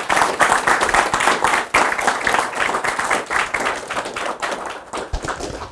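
Audience applauding in a small room: a dense run of hand claps that thins out and stops near the end.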